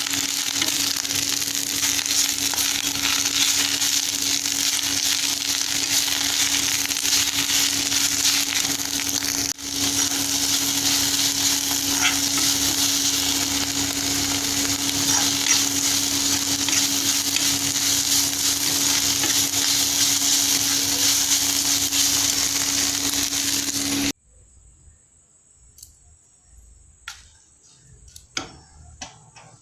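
Electric mixer grinder running steadily, grinding chutney, with a constant motor hum under loud whirring noise; it stops abruptly near the end, followed by a few light clicks and knocks.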